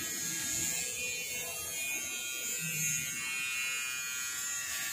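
Electric hair clipper running steadily with an even buzz as it shaves a baby's hair.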